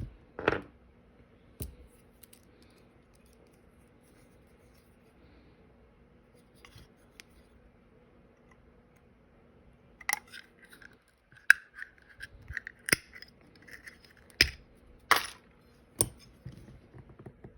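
Sharp clicks, taps and short scrapes of small tools against the plastic and die-cast metal parts of a model truck cab as a stuck part is worked at: a couple of clicks at the start, a quiet stretch, then a quick run of clicks and scrapes in the second half.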